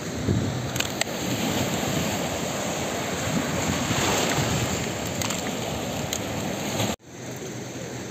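Wind buffeting the microphone over rushing, turbulent muddy floodwater where a flooding river pours into a rough sea. About seven seconds in the sound cuts off abruptly and a quieter, steady hiss follows.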